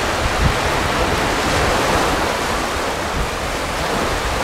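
Steady rushing noise of surf and wind, with the low end of the wind buffeting the microphone.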